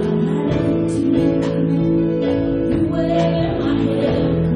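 Live worship band playing a song: strummed acoustic guitar and sustained keyboard chords over drums keeping a steady beat.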